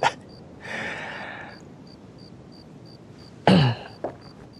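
A man's non-speech vocal sounds: a breathy exhale lasting about a second, starting half a second in, then a short voiced sound falling in pitch about three and a half seconds in.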